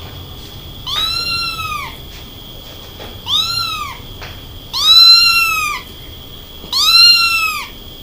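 A kitten trapped down a narrow pipe meowing four times, each meow rising and then falling in pitch and lasting up to about a second, with pauses between them.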